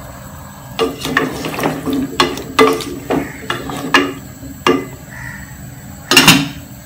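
Wooden spatula stirring pumpkin chunks in an aluminium saucepan, a run of quick scrapes and knocks against the pan. Near the end a metal lid is set down on the pan, the loudest sound.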